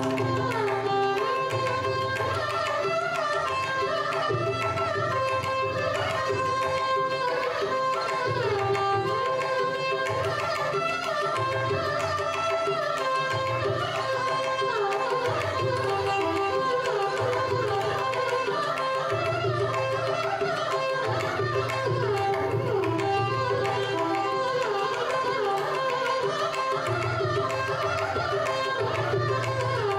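Carnatic violin duet with mridangam accompaniment: two violins playing a gliding, ornamented melody line over a steady drone, while the mridangam plays rhythmic hand strokes with a deep bass beneath.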